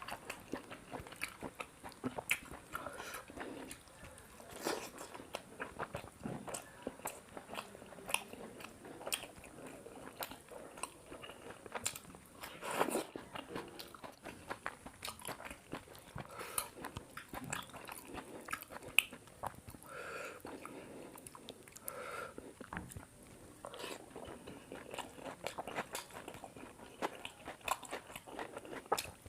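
Close-up eating sounds: a person chewing big mouthfuls of paratha and chicken curry, with wet smacks and irregular crunchy clicks.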